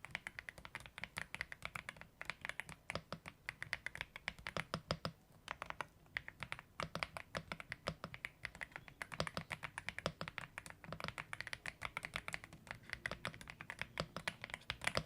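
AULA F75 mechanical keyboard being typed on continuously, rapid key presses clacking with brief pauses between bursts of words.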